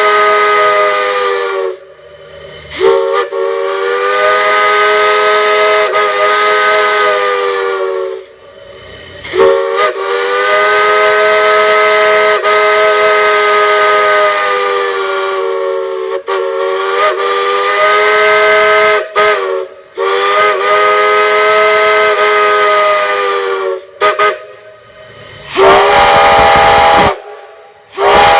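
Multi-chime steam whistle blown in a series of long blasts, each a chord of several tones over a hiss, with short gaps between them. Each blast slides up slightly as it opens. Near the end a higher, differently pitched chord sounds.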